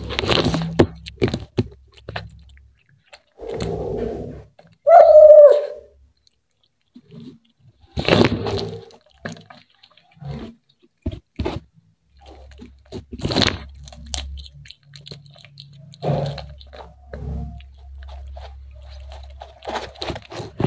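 Cat chewing and crunching fried fish right at the microphone, in bouts of bites and crunches with pauses between. About five seconds in there is one short pitched cry, the loudest sound.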